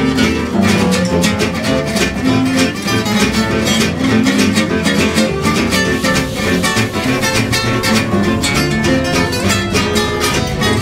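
Small acoustic swing jazz band playing: two acoustic guitars strumming and picking over a double bass, with a clarinet.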